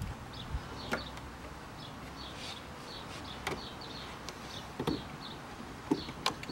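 Hands handling braided stainless steel oil cooler hoses while tying string around them: a few light clicks and knocks, the sharpest right at the start. Short high chirps of small birds repeat throughout in the background.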